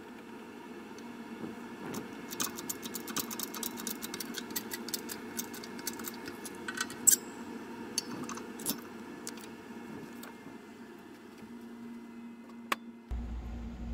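Steel coining dies and a flat steel plate clicking and clinking against each other as they are set in position on a press, for a second strike of an annealed gold round, over a steady hum. About a second before the end a low rumble starts suddenly.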